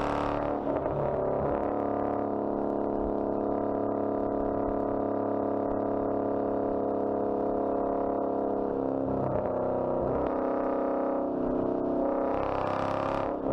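Straight-piped Hemi V8 exhaust of a 2013 Dodge Charger cruising at a steady engine speed inside a tunnel, a loud, steady drone. The pitch shifts a little about nine seconds in, and a short rush of hiss comes near the end.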